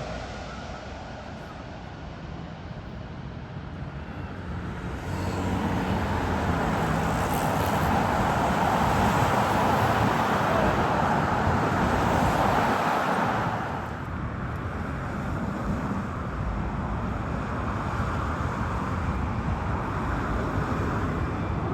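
Jet airliner engine noise swelling for several seconds and then dropping away fairly suddenly, over a steady rumble of road traffic.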